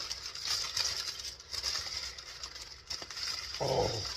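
Packaging rustling and crinkling as an item is unwrapped from a box, over a steady faint hiss; a short spoken "oh" near the end.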